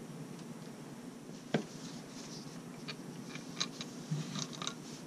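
Motorcycle fork parts (the fork spring and the fork leg) being handled and set down on a table: a single knock about a second and a half in, then a run of light clicks and ticks, and a louder knock at the very end.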